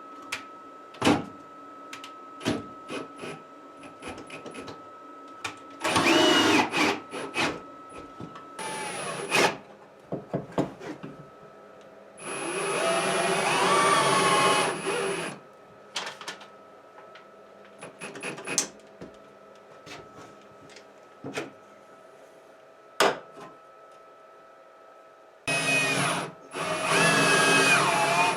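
Power drill running in three spells, its whine rising and falling as it drives screws, with clicks and knocks of metal parts being handled in between.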